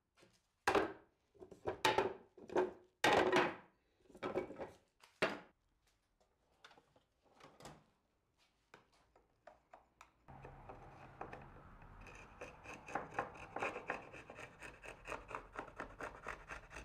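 Hand scraping on wood: a run of loud, separate scraping strokes, then from about ten seconds in a steady scrape with fast chatter as a chisel pares dried glue squeeze-out off the face of a glued-up wooden panel.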